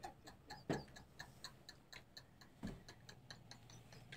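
Faint, rapid, regular ticking, about five ticks a second, with two slightly louder soft sounds about a second apart early on and near the middle.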